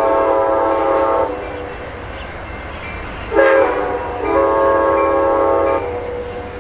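Amtrak California Zephyr's lead GE P42 diesel locomotive sounding its multi-chime air horn: a long blast that ends about a second in, a short sharp blast around three and a half seconds, then another long blast, the close of the long-long-short-long grade-crossing signal. A low rumble of the approaching train runs beneath.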